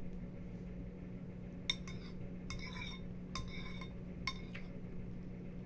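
Metal spoon clinking and scraping against a ceramic bowl, four short clinks about a second apart, over a steady low hum.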